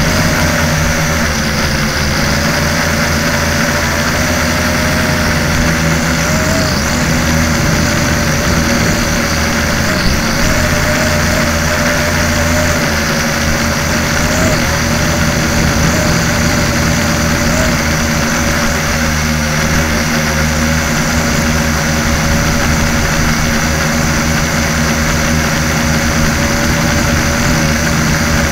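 Latrax Alias quadcopter's electric motors and propellers running steadily in flight, heard up close from a camera on the drone: a loud, even buzzing hum whose pitch wavers slightly.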